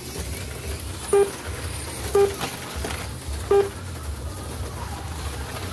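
Three short electronic beeps from a slot car lap counter, over a steady low hum.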